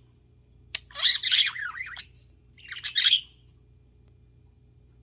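Pet cockatiel chirping in two short bursts of rapid, high warbling calls, about a second in and again near three seconds.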